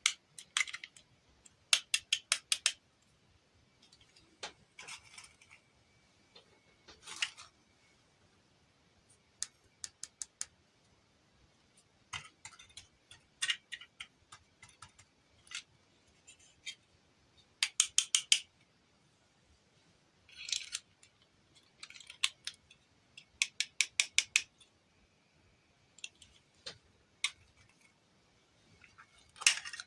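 Small scissors snipping in quick runs of several cuts, the runs separated by pauses filled with soft handling and rustling.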